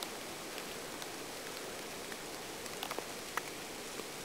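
Steady rain falling on leafy ground cover, an even hiss with a few light ticks of drops about three seconds in.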